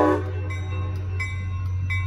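A commuter train's horn cuts off a moment in. A railroad crossing bell then rings in even strokes, about one every 0.7 seconds, over the low, steady rumble of the passenger train passing through the crossing.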